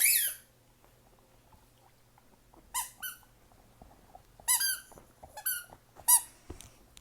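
A dog's squeaky ball being chewed, letting out a string of short, high-pitched squeaks in small groups with short pauses between.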